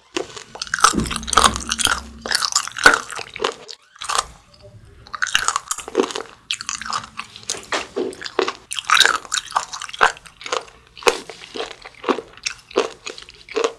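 A person chewing a mouthful of fermented skate (hongeo) close to the microphone, in an irregular run of sharp crunches as the skate's cartilage is bitten through.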